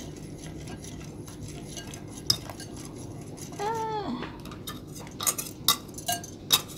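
Wire whisk stirring a thin rice-flour batter in a glass bowl: soft swishing at first, then several sharp clinks of the whisk against the glass in the last two seconds. A brief voice sound comes about halfway through.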